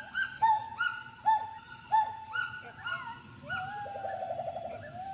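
Gibbon calling: a run of short whooping notes, each sliding quickly up and then held, about two a second, with a fast bubbling trill near the end.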